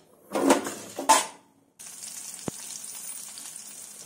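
Garlic cloves frying in coconut oil in a wok: a steady sizzle that starts abruptly about two seconds in, with a single sharp click partway through. Before it, two short loud bursts of noise.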